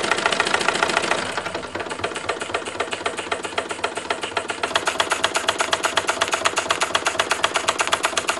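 Large Bing horizontal toy steam engine running on live steam, its slide-valve cylinder giving a fast, even beat of exhaust puffs and clicks: the engine running well.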